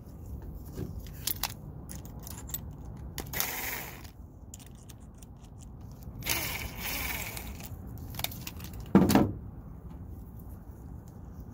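Small clicks and rustling of wire, ring terminals and a hand tool being handled with gloved hands, with two short stretches of rustling noise. A louder knock comes about nine seconds in.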